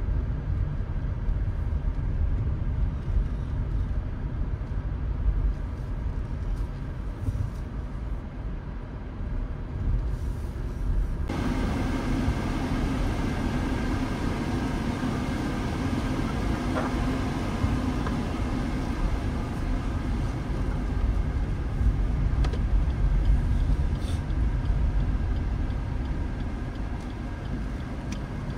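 A car driving along a road: a steady low rumble of engine and tyres. About eleven seconds in it turns a little louder and brighter, with more hiss on top.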